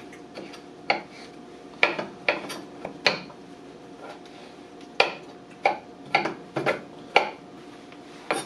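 Kitchen knife roughly chopping a pepper on a small wooden cutting board: irregular sharp knocks of the blade striking the wood, coming in quick clusters with short pauses between them.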